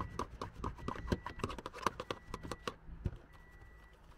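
A stiff detailing brush worked against a car's plastic interior door trim around the door handle recess, making a quick run of light clicks and taps that stops a little over halfway through.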